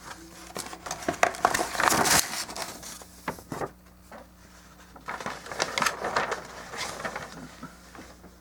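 Plastic model kit parts being handled and fitted by hand: irregular clicks, taps and rustling in two busy stretches, one starting about a second in and another around five seconds in.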